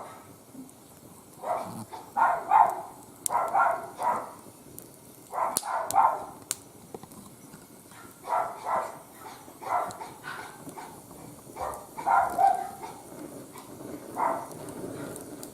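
A dog barking repeatedly in short runs of two to four barks, with a few sharp crackles from the wood fire.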